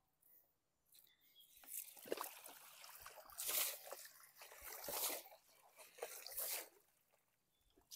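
Water splashing and streaming off a wet collapsible mesh shrimp trap as it is hauled up out of the river. It starts after about a second and a half and comes in several surges.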